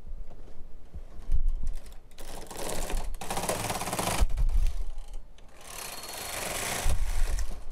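Knitting machine carriage pushed across the needle bed and back, two long rattling passes with a heavier thud where each ends, knitting one circular row with the ribber attached.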